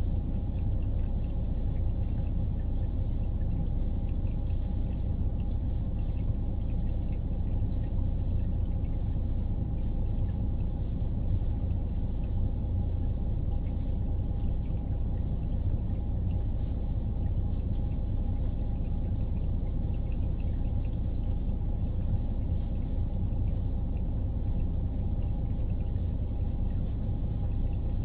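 Tsunami floodwater flowing and churning around a truck, heard from inside the cab as a steady low rumble with a faint continuous hum.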